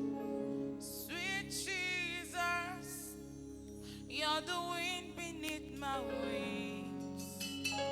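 Gospel music intro: held keyboard chords with a voice singing wordless, wavering runs over them in two phrases.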